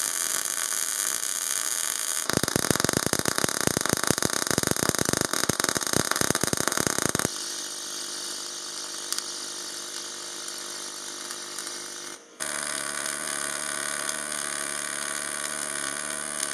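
MIG/MAG welding arc, heard in successive short clips of different metal transfer modes. A steady hiss gives way about two seconds in to some five seconds of irregular crackling and popping. From about seven seconds the sound is steadier. After a brief break near twelve seconds it becomes a steady buzz.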